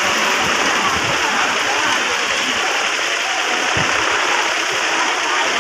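Steady babble of a large crowd, many voices talking at once, with no single voice standing out.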